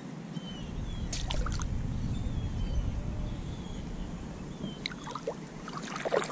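Water splashing as a snakehead is released beside a kayak: a few splashes a second in, then a burst of splashing near the end as the fish kicks away, over a low rumble.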